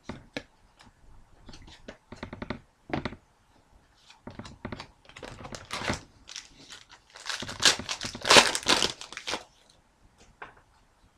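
Trading-card pack wrapper crinkling and tearing, with cards rustling and clicking as they are handled. The loudest crinkling comes in a stretch of about two seconds past the middle.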